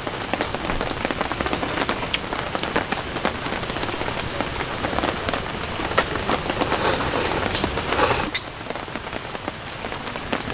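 Steady rain falling, an even hiss with many small drop ticks close by. It eases a little about eight seconds in.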